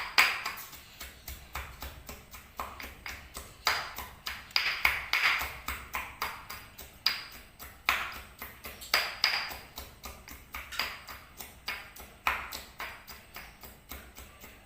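Pestle pounding spices in a mortar: rapid, repeated strikes, each with a short ringing ping.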